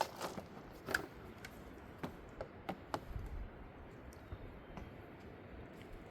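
Scattered light clicks and taps at irregular intervals, a dozen or so, over a quiet background.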